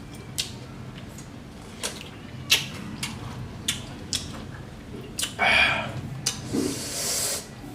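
Close-up eating sounds: scattered mouth clicks and smacks while chewing a rice meal, with a short breathy rush about five seconds in and a high hiss near the end.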